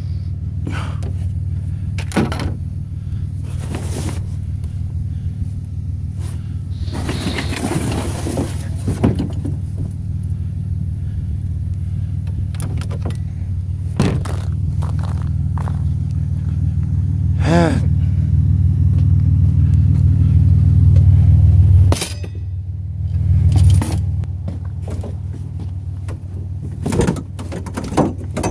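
A vehicle engine running with a steady low rumble that drops away sharply about 22 seconds in, over knocks, clicks and rustling from plastic trash-bin lids and bagged garbage being handled.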